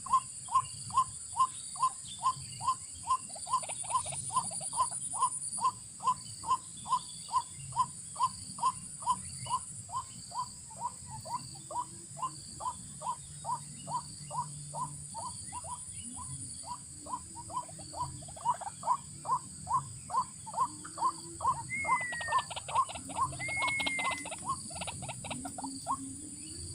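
A swamp-bird call used to lure birds into a trap: one short note repeated very regularly, about twice a second, stopping shortly before the end. Near the end, two brief whistles and a patter of clicks join in.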